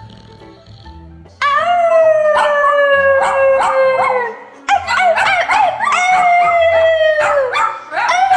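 A dog howling: two long howls, each sliding slowly down in pitch, and a third starting near the end.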